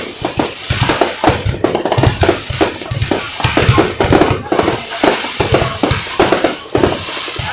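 Loud music with a steady drum beat, with many sharp crackling pops scattered throughout.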